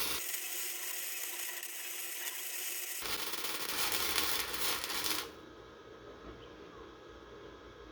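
Welding arc crackling and hissing steadily, then cutting off suddenly about five seconds in as the weld bead stops.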